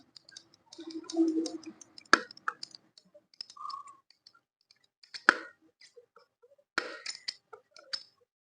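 Universal joint (UJ cross) of a Maruti Omni's propeller shaft being flexed back and forth by hand, giving scattered clicks and a few short squeaks, the 'kee' rubbing sound. The joint is tight and won't swing freely: its needle bearings have lost their grease and rusted, so both UJ crosses need replacing.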